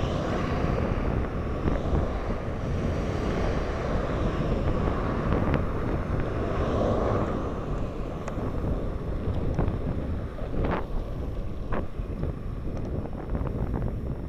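Wind buffeting the microphone of a camera on a moving road bike, a steady low rush, with a few sharp knocks in the second half as the bike rides over cracked asphalt.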